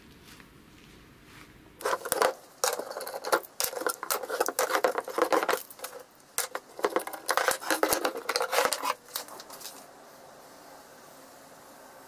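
Metal F-style bar clamps being loosened and taken off a plywood strip on a workbench: a run of irregular metallic clicks, rattles and clatters from about two seconds in until about nine seconds.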